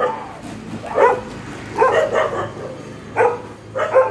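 A dog barking repeatedly, about once a second.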